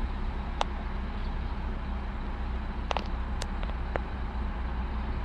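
2015 Ford Focus ST's 2.0-litre EcoBoost turbocharged four-cylinder engine idling steadily after a cold start, with a cylinder 1 misfire (P0301) logged. A few sharp clicks stand out over the idle.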